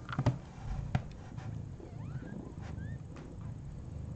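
Rustling and handling noise with two soft knocks in the first second, then a few faint, short high squeaks: newborn kittens mewing.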